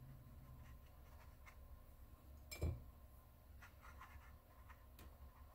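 Faint soft strokes of a watercolour brush dabbing on wet paper, with one light knock about two and a half seconds in.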